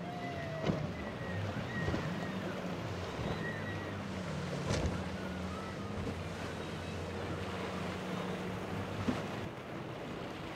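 Outboard-powered boats running through rough inlet waves: engines droning under the rush and splash of water, with wind buffeting the microphone and a few sharp thumps.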